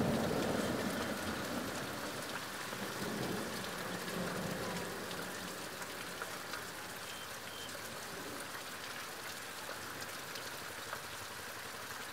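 Heavy monsoon rain falling steadily, an even hiss of drops on the ground and foliage, a little louder at first and then settling.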